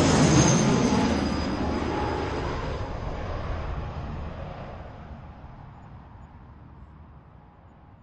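Propeller airliner landing: its engine and propeller noise is loudest at the start and fades steadily away over several seconds as the plane moves off.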